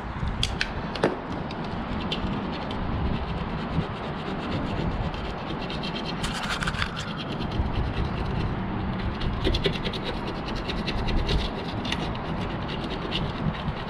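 A screwdriver scraping old weather-stripping adhesive and foam out of a car door's metal channel: steady scratching made of many short strokes, which become rapid and dense in the second half.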